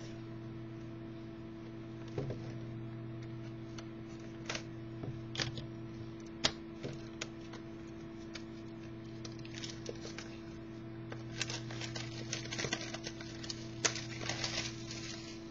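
Trading-card packaging being opened and handled: scattered sharp clicks and short rustles, busier in the last few seconds, over a steady low hum.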